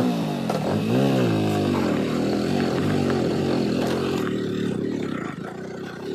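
Motorcycle engine under load climbing a steep, rocky dirt track. Its pitch rises and falls about a second in, then it runs fairly steadily.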